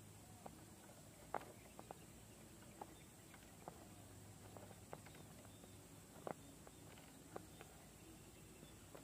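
Quiet, scattered sharp clicks and small knocks from an RC rock crawler's tyres and chassis against rock as it creeps up a steep face, the two loudest about a second and a half in and just past six seconds. A faint low hum lies under them.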